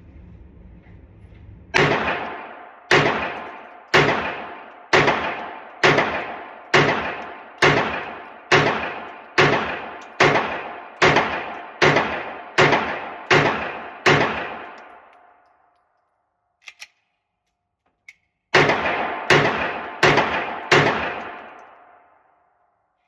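Glock 19X 9mm pistol fired at an indoor range: about fifteen shots at roughly one a second, each ringing out and decaying in the room. After a pause with a couple of faint clicks come five quicker shots.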